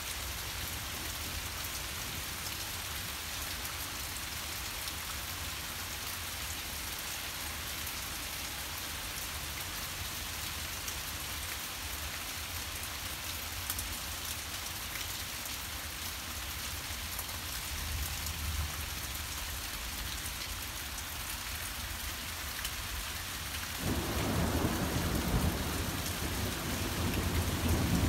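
Heavy rain pouring steadily in a severe thunderstorm, with runoff streaming off the porch roof. Near the end, thunder rumbles in suddenly and grows louder.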